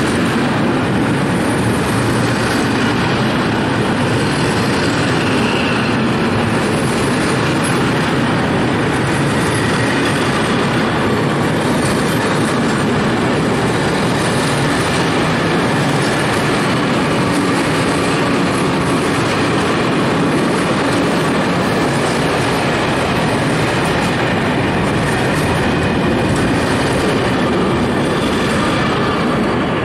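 Freight train of stake flat wagons, some loaded with steel beams and plates, rolling steadily past. Its wheels and wagons make a loud, continuous noise on the rails.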